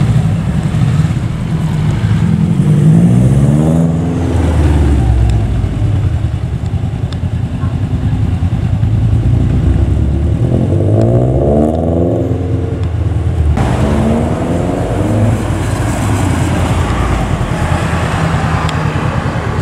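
Subaru Impreza's turbocharged flat-four engine revving hard as the car pulls away, its engine note rising in runs of acceleration about two seconds in and again about ten seconds in. Near the end another car's engine is heard passing.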